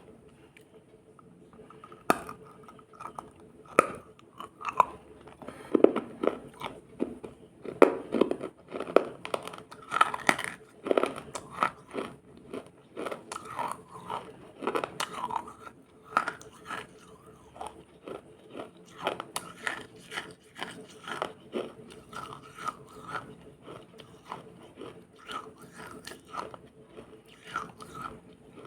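Close-up biting and chewing of something crisp and watery: a run of sharp wet crunches that starts about two seconds in and is heaviest early on before settling into lighter, steady chewing.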